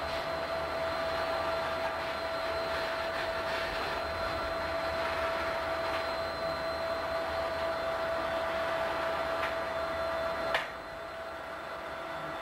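Freight train's boxcars rolling past, a steady rushing noise with a constant whine over it. About ten and a half seconds in there is a sharp click, the whine stops and the sound drops a little.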